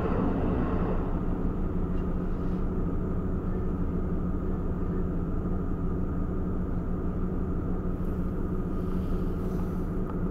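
Steady low vehicle rumble with a constant hum, a little louder in the first second and then even.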